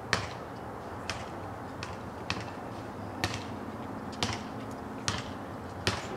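Short, sharp clicks at uneven intervals, about one a second, over a steady low background hum.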